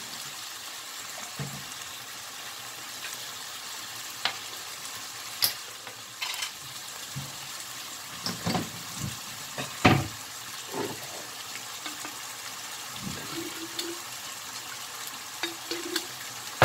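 Seasoned ground beef sizzling in a nonstick frying pan, a steady hiss. Scattered taps and knocks come through it, the loudest about ten seconds in.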